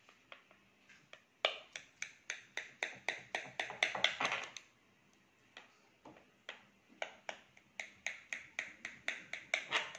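Knife cutting through baked lasagna in a glass baking dish with quick sawing strokes, making a run of crisp clicks about three or four a second. It comes in two bouts with a short pause about halfway.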